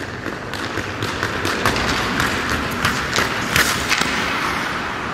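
Hockey skate blades scraping and cutting across rink ice in hard strides, with scattered sharp taps of the stick blade on the puck and ice.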